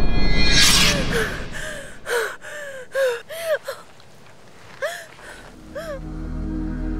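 A terrified woman gasping: one loud sharp gasp about half a second in, then a string of short, breathy whimpering cries. A low music drone comes in near the end.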